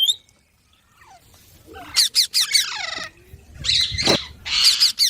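Baby green parrot squawking. After a short silence, a run of harsh, rasping calls begins about two seconds in, each sweeping down in pitch.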